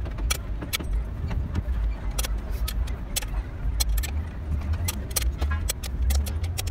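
Metal hand tools clinking and tapping against the parts of an opened truck gearbox casing: many short, sharp clicks at an uneven pace, several a second, over a steady low rumble.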